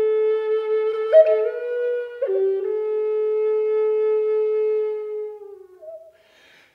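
Background music: a solo flute playing a slow melody of long held notes. It fades out with a short pause near the end.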